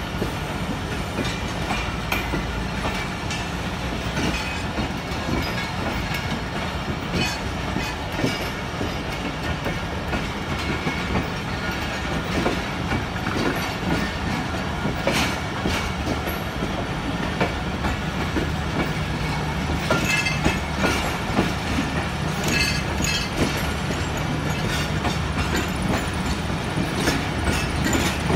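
A train of Pakistan Railways passenger coaches rolling past, wheels clacking over the rail joints with a steady rumble. The clatter grows a little louder and busier in the second half.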